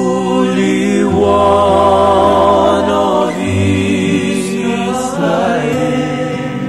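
Worship song: sung voices holding long, wavering notes over sustained instrumental backing.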